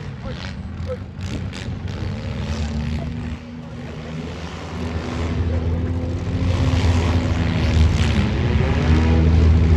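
Four-cylinder demolition-derby car engines running and revving, growing louder over the second half, with a few sharp knocks about a second in.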